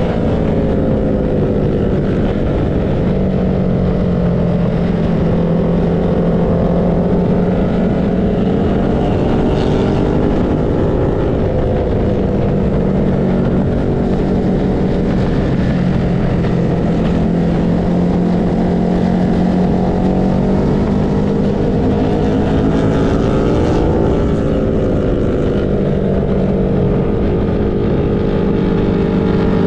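Engine of a vehicle lapping a race track at speed, its pitch rising and falling with throttle and gear changes over steady wind and road noise.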